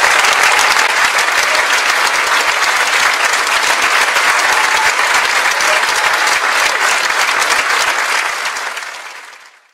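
Crowd applauding, a dense steady clapping that fades out over the last second or so.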